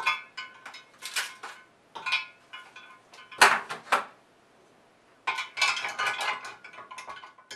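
Ice cubes cracked out of an ice cube tray and dropped into a glass jar of sweetened tea: a string of sharp clinks and knocks, the loudest about three and a half seconds in. A denser run of clinking follows near the end as the ice is worked around inside the jar.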